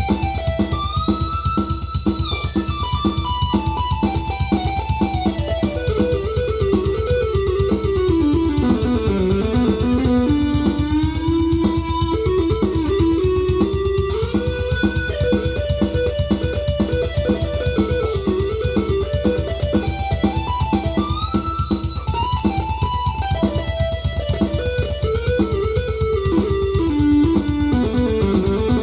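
Korg Krome synthesizer playing an electric-guitar-like lead with gliding pitch bends over a fast, even rhythmic backing; the phrase repeats about halfway through.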